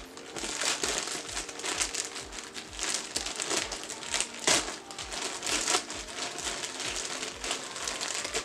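Plastic mailer bag being torn open and crinkled by hand: an irregular run of crinkling and tearing rustles, loudest about four and a half seconds in.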